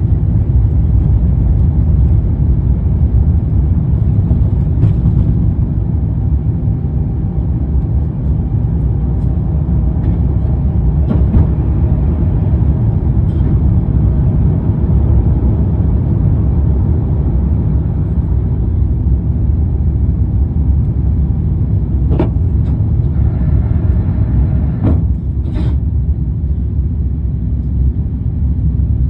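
Jet airliner's engines and airframe heard from inside the cabin during takeoff: a loud, steady low rumble, with a few faint clicks late on.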